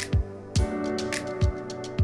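Background music with a steady electronic drum beat (deep kick thuds and sharp snare hits) over sustained chords.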